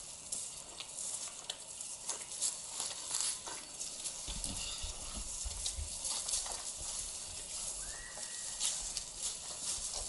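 Footsteps on a grassy forest path, with feet and legs swishing through grass and ferns and irregular light crackles underfoot.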